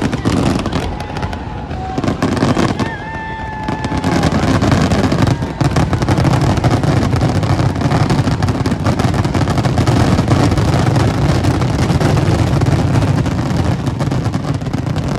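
Fireworks going off in a dense, unbroken barrage of rapid bangs and crackles, thickening from about four seconds in.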